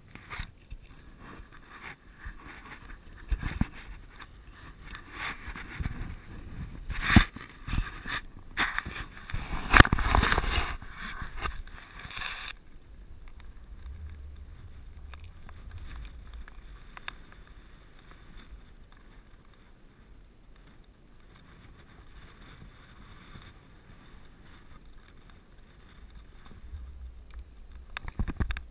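Handheld action camera being handled, with irregular knocks and rustling for about the first twelve seconds, the loudest near the middle. After that comes a quieter steady noise with a low rumble now and then, like wind on the microphone.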